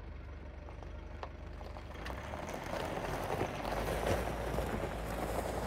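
Mitsubishi L200 pickup's 2.2-litre diesel engine running as the truck pulls away on gravel. From about two seconds in, the tyres crunching over the gravel grow louder.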